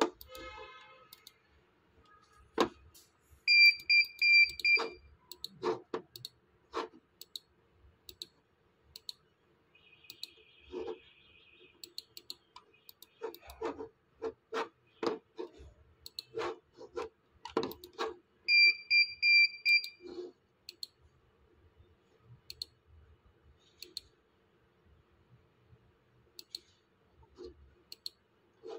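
Computer mouse clicking again and again while menus are worked through, with two runs of rapid high-pitched electronic beeps, each about a second and a half long, a few seconds in and again about two-thirds of the way through.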